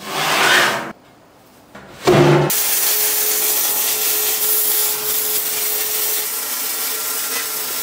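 Wire-feed (MIG) welder arc on steel: a short scraping rush near the start, then the arc strikes sharply about two seconds in and runs as a steady crackling hiss while a seam is laid.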